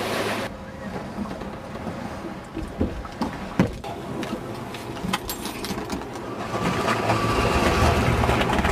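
Scattered knocks and bumps on a small motorboat, then its motor running steadily and louder from about seven seconds in as the boat gets under way.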